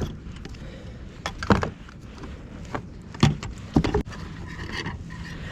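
Gear being handled in a kayak: several sharp knocks and clunks, one about a second and a half in and a cluster between three and four seconds in, with rustling and shuffling between them.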